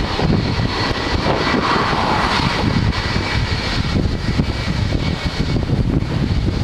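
KLM Airbus A330's jet engines at takeoff thrust as the airliner lifts off and climbs away, a steady loud rumble with a faint high whine. Gusty wind buffets the microphone.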